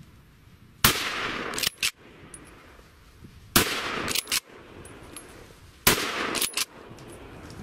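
Three gunshots, about two and a half seconds apart, each followed by a loud rolling echo of just under a second that ends in one or two sharper cracks.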